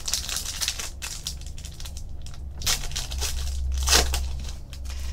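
A trading-card pack wrapper being torn open and crinkled by hand, a dry crackling rustle with two louder rips in the second half.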